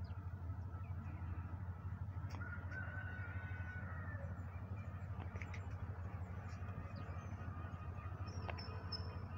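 Outdoor ambience: a steady low rumble, with faint bird calls now and then.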